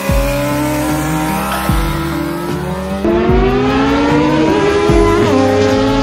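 Car engine revving hard as the car launches and accelerates down a drag strip. The pitch climbs steadily, then drops at gear changes about four and a half and five seconds in.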